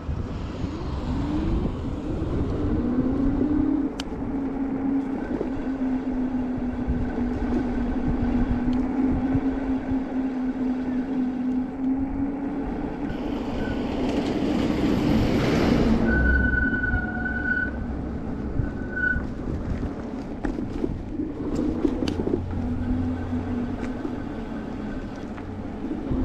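Juiced HyperScrambler 2 e-bike rolling with its brakes held on, the front disc rotor freshly coated in anti-squeal paste, with a steady hum that rises in pitch over the first couple of seconds and then holds, plus wind and road noise. A brief high-pitched tone sounds about two-thirds of the way through.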